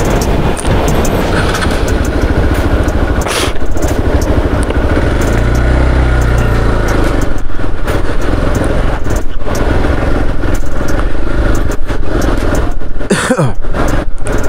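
Hero XPulse 200 4V's single-cylinder engine running under way on a rough, unpaved mountain road. Frequent sharp knocks and rattles come from the bumps.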